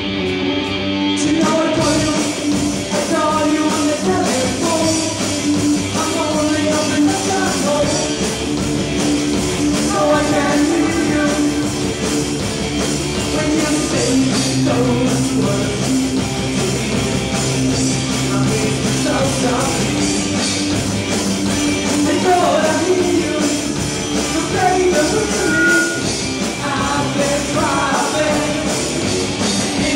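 Live rock band playing glam metal: electric guitars, bass guitar and drum kit, with a male lead vocal.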